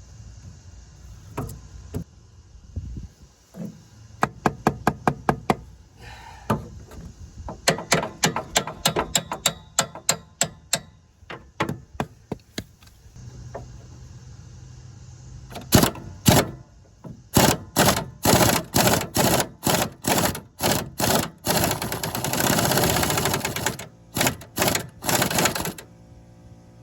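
Hand tools working on the front suspension bolts: runs of sharp metallic taps and clicks, about four or five a second, coming in bursts, with a denser stretch of rapid clicking near the end.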